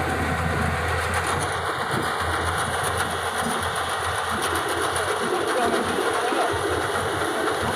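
Yanmar AW70GV combine harvester running steadily: a constant diesel engine and machinery din at an even level.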